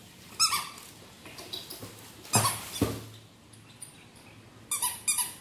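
Squeaky rubber duck toy being squeezed and bitten, giving short high-pitched squeaks about half a second in and twice more near the end. Two dull thumps come midway.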